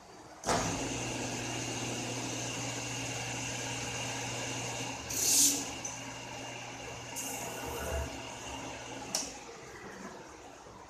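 CNC metal-spinning lathe running as it forms a thin aluminium disc into a light-fitting canopy: a steady machine sound with a low hum and held tones starts suddenly about half a second in. Two bursts of hissing come about halfway through and a little later, and a sharp click near the end, after which the machine sound drops away.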